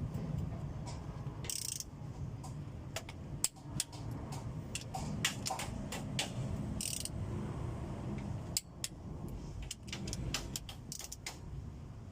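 Irregular metallic clicks and clinks of hand tools on engine parts, over a steady low rumble, with two short hisses about a second and a half in and again near the middle.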